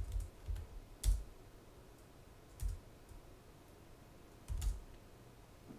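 A handful of scattered keystrokes on a computer keyboard, the sharpest about a second in, while the command to program the microcontroller through the debugger is entered.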